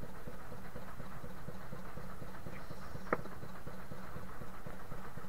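A small wooden fishing boat's engine running with a steady low, rapidly knocking rumble. A single sharp click about three seconds in.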